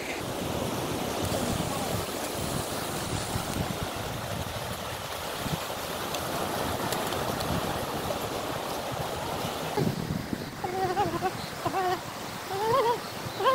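Sea surf breaking and washing up onto a sandy beach in a steady rush. From about ten seconds in, a few short, bending calls or voices sound over it.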